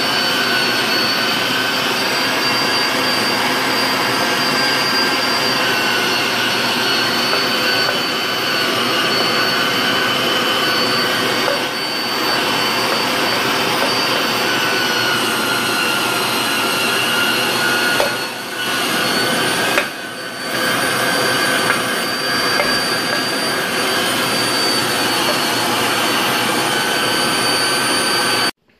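Waring Pro electric meat grinder running under load, grinding raw venison into hamburger: a loud, steady motor whine that dips briefly twice past the middle.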